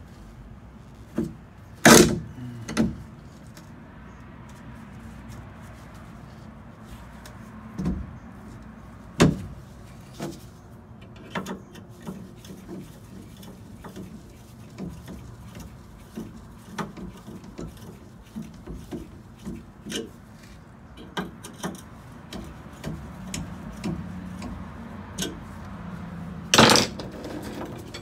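Scattered knocks, taps and clicks of a chrome steering column being handled and fitted in its mounting bracket, with two louder knocks, about 2 s in and near the end.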